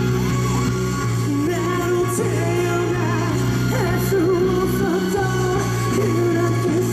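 Live band music with a man singing the lead melody over a steady accompaniment.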